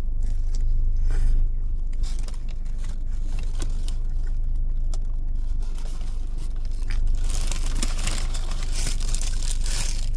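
A person chewing a mouthful of burger close to the microphone, with crackly mouth and crunch noises over a steady low hum. About seven seconds in there is a louder spell of rustling, like a wrapper being handled.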